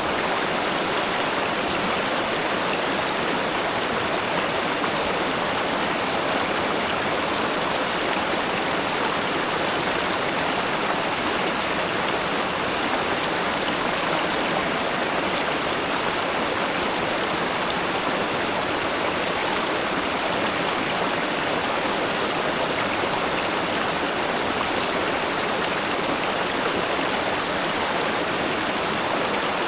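River water flowing steadily, a constant even rush with no separate splashes.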